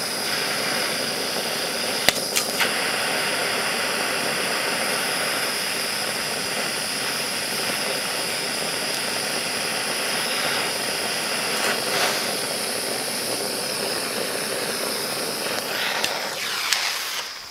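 Mini blowtorch flame hissing steadily as it heats a pile of dried-out electrolytic capacitors, with a few small sharp pops about two seconds in and once more later on. The hiss dies away near the end.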